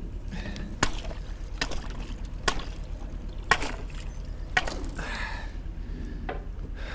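A wooden boat pole striking and breaking thin canal ice, about five sharp blows a second apart, each with a crack of ice and a splash of water.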